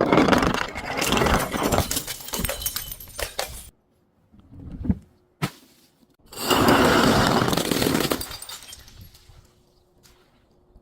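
Brittle things being smashed and crushed: a long crackling, crunching burst, a brief crack, then a second crunching burst about six seconds in that fades out.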